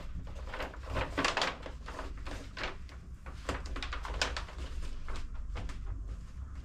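A run of irregular scrapes, rustles and light knocks, with a steady low hum underneath.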